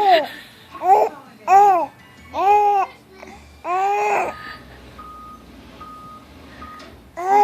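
Baby making a string of short high-pitched vocal sounds, each rising and then falling in pitch: five in quick succession over the first four seconds, then one more near the end.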